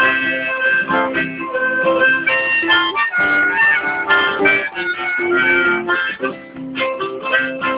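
Harmonica played over a strummed acoustic guitar, an instrumental break with no singing.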